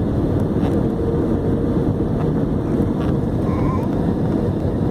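Steady engine and airflow noise inside the cabin of a twin-engine jet airliner descending on approach to land, heard from a seat over the wing: a constant low rumble with a faint steady hum running through it.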